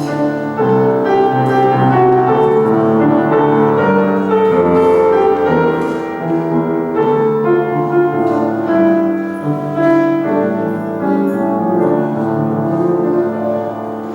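Instrumental piano music with sustained chords, the closing bars of a worship song after the singing has stopped.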